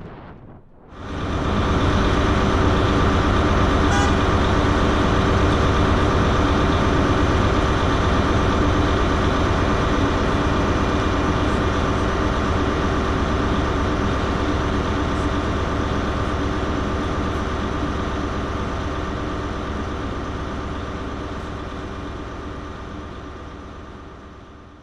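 Diesel train idling at a station platform: a steady engine hum with a low rumble, fading out gradually near the end.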